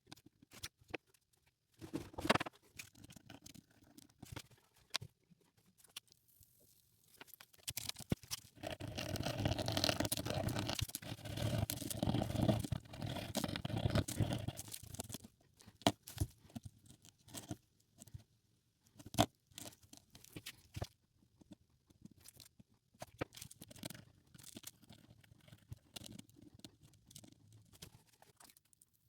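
Hand cleaning of a small bronze coin: scattered sharp clicks and scrapes of a tool on the metal, with a stretch of steady scrubbing lasting several seconds about a third of the way in.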